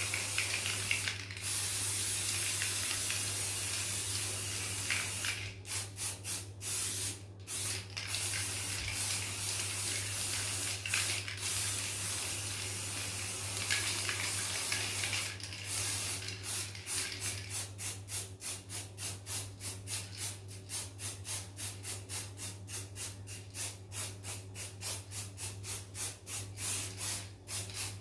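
Aerosol spray-paint can spraying black paint onto a glass panel. A steady hiss for the first few seconds breaks into separate sprays, then into rapid short squirts, about three a second, in the second half.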